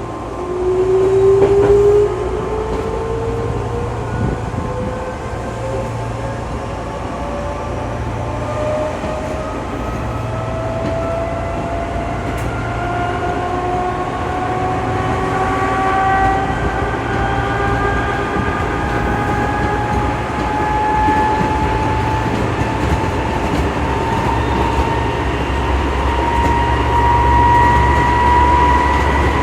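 Odakyu 2000 series electric train accelerating, heard from inside the car: traction motors and gears give a whine that rises steadily in pitch over the rumble of the running gear. Partway through, an abnormal growl like an old nose-suspended (tram-style) motor drive joins in, a noise the uploader flags as unusual for this train.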